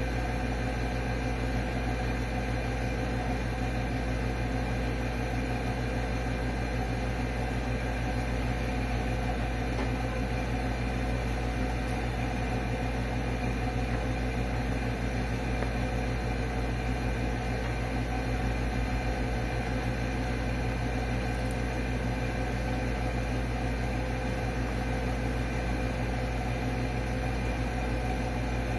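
Steady machine hum: a low drone with several steady tones over an even hiss, unchanging in level.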